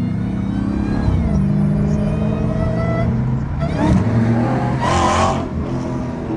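Supercharged 6.2-litre Hemi V8 of a Dodge Hellcat accelerating hard. The engine pitch rises, drops sharply about three and a half seconds in as it shifts up, then climbs again, with a louder, harsher stretch about five seconds in.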